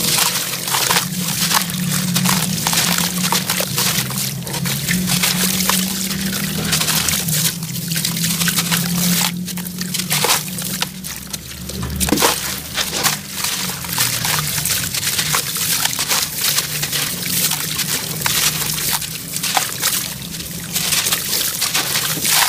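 Clumps of sand-cement mixture crumbled by hand into a tub of water: a dense stream of gritty crackles as grains and lumps pour and splash into the water, with one louder thump about halfway through.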